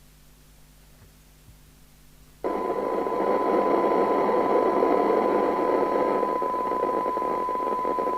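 Midland 4001 FM CB radio's receiver audio through an instrument speaker: a steady test tone from the signal generator sitting in loud hiss, the weak received signal of a sensitivity (SINAD) test. The audio is off at first and comes in abruptly about two and a half seconds in.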